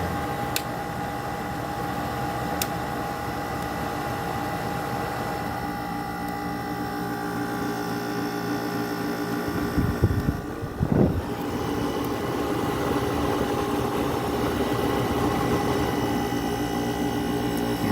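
Small Haier window air conditioner running with its compressor and fan on: a steady hum with a steady whine over the rush of air. About ten seconds in there are a couple of brief low rumbles.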